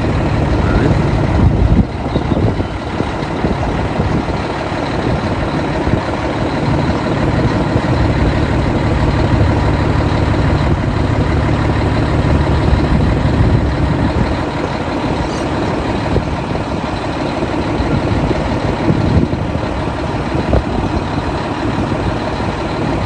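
Scania 124G 360 truck's straight-six diesel engine idling steadily.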